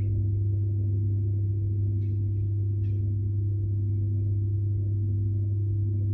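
Steady electrical hum inside an ER9M electric train carriage: one strong low tone with fainter higher tones above it, holding level throughout. Two faint clicks come about two and three seconds in.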